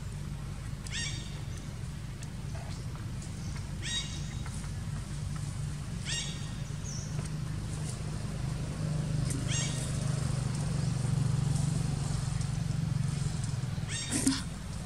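Short, high, falling animal calls repeated every two to three seconds, the loudest near the end, over a steady low drone that swells midway.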